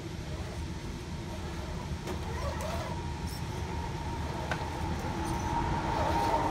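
Small electric motor and gearbox of an RC rock crawler whining as it crawls slowly over boulders. The whine grows louder near the end, and a couple of sharp clicks come from the rock. A steady low rumble runs underneath.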